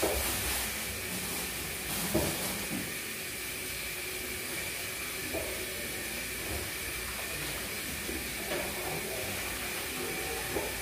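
Steady hiss with a few light knocks and clinks of bowls, pots and meat being handled at a kitchen sink and table, the sharpest about two seconds in.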